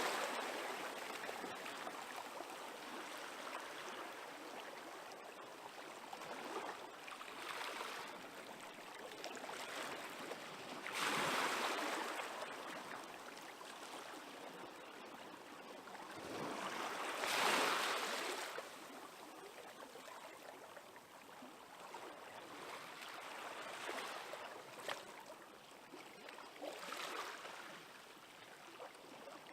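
Small waves on a calm sea washing gently onto the shore: a steady soft hiss of water that swells every few seconds, most strongly about 11 and 17 seconds in.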